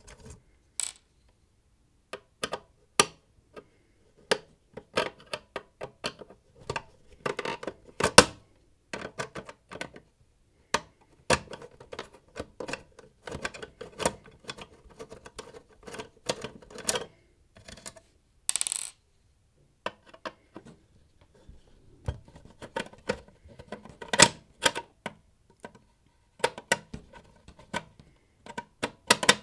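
A person handling a small electrical appliance to repair it: irregular clicks, taps and light rattles of hard plastic and metal parts being moved and fitted. A short hiss comes a little past halfway.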